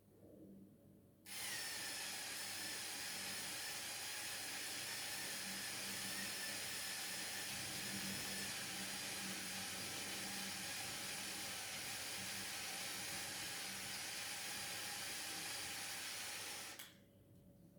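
Small electric motor whirring steadily through Lego Technic gears. It starts abruptly about a second in and cuts off near the end, with its pitch dipping slightly just after it starts.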